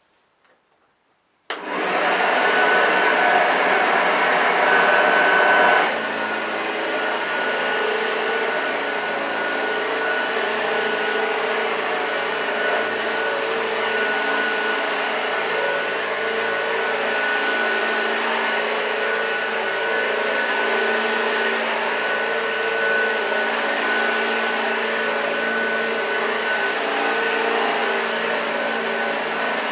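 1986 Hoover Junior U1206 upright vacuum cleaner switched on about a second and a half in, its motor starting suddenly and then running steadily with a thin high whine over the rush of air. About six seconds in the sound drops a little in level and settles, running on evenly.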